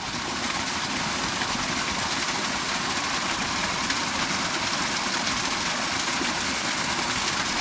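Rushing water, a rain-swollen torrent running hard, a steady, loud, even roar.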